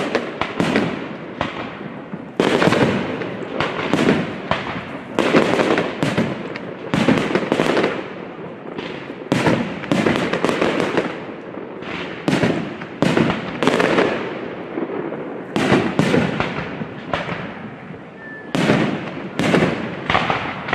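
Aerial fireworks display: shells bursting in quick succession, about one or two loud bangs a second, each dying away quickly before the next.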